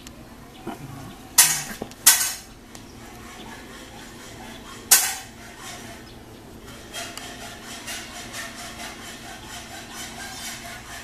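Close handling noise on the recording device: three sharp knocks, then a steady rough scraping and rubbing, as a kitten paws at and rubs against it.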